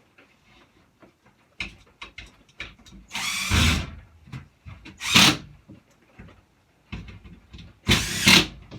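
A power drill driving screws into wood in three short runs, each speeding up and slowing off. Small knocks and clicks come between the runs.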